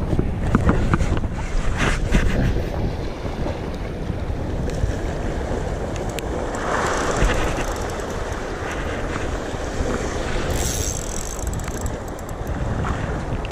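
Wind buffeting the microphone over the wash of sea waves breaking against the rocks, a steady rumbling rush.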